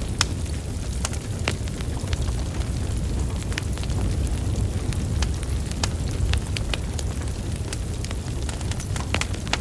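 Wood fire burning: a steady low rumble of flames with frequent sharp, irregular crackles and pops from the burning logs.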